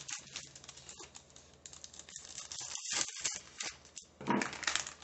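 A crinkly snack bag being handled and opened, with irregular rustling and crackling.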